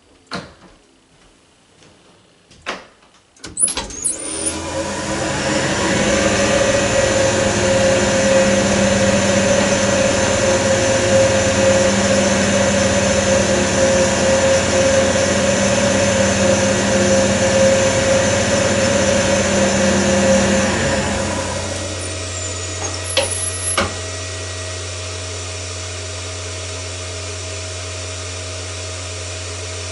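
Residential winding-drum elevator hoist: a few clicks, then its electric motor starts up and runs steadily with a hum and a high whine while the cable drum turns. About 21 seconds in it winds down with a couple of clicks, and a steady low hum is left.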